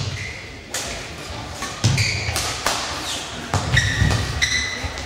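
Badminton rally: several sharp racket hits on the shuttlecock, shoes squeaking on the court floor and thuds of players' feet landing, with the echo of a large sports hall.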